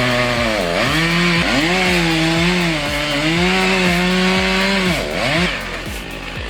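Chainsaw running under load while cutting wood, its engine pitch holding fairly steady. The pitch dips sharply about a second in and again near the end, where the sound drops away.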